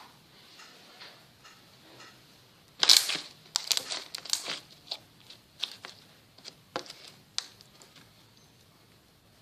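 Slime being squeezed and poked by hand, giving irregular crackles and pops, busiest and loudest in a cluster about three to five seconds in, then thinning out.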